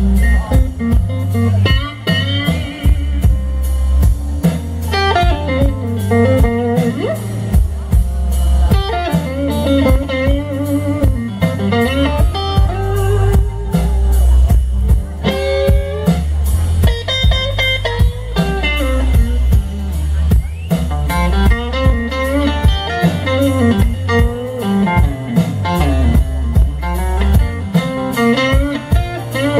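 Live blues band playing an instrumental guitar solo: an electric guitar with many bent notes that slide up and down in pitch, over bass guitar and drums.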